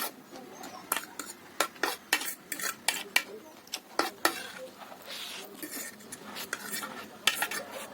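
Cutlery clinking and scraping against a bowl of noodle soup in quick, irregular sharp taps, some ringing briefly.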